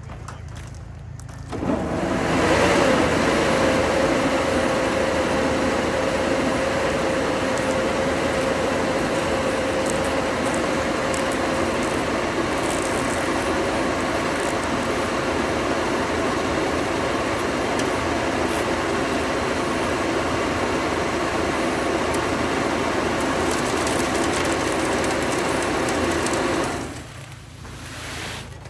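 A machine's motor running steadily with a constant hum, starting abruptly about two seconds in and cutting off shortly before the end.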